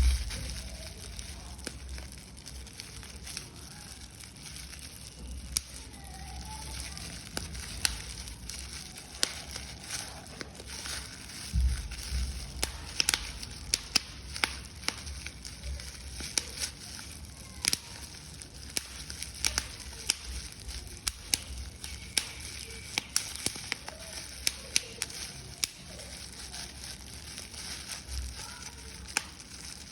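Paper being crushed and crumpled by hand: a continuous, irregular run of sharp crackles, with a few low thumps, the strongest about twelve seconds in.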